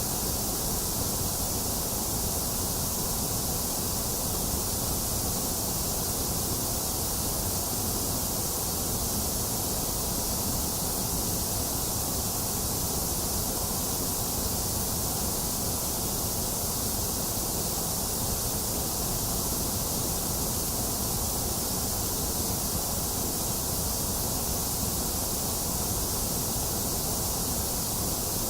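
A box fan running steadily, mixed with falling rain: an even, unbroken hiss with no changes or separate events.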